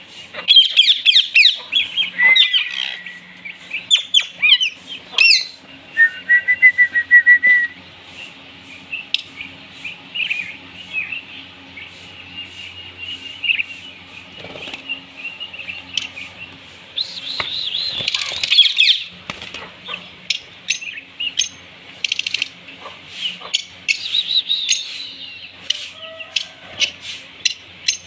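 A mix of caged parrots, ringneck parakeets, budgerigars and lovebirds, chirping and squawking in many short, quick calls, with scattered sharp clicks among them. A rapid trill stands out early on, and there are louder clusters of calls in the first few seconds and again about two-thirds of the way through.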